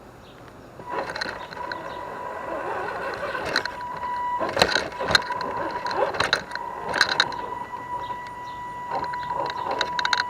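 Axial SCX10 Deadbolt RC crawler's 27-turn brushed electric motor and gearbox whining steadily as it drives, starting about a second in. Over the whine come repeated sharp knocks and scrapes of tyres and chassis on rock.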